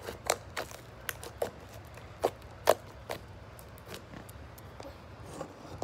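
Clear-glue and borax slime being squeezed and pulled in the hands, giving an irregular string of sharp pops and clicks, the loudest a little under three seconds in.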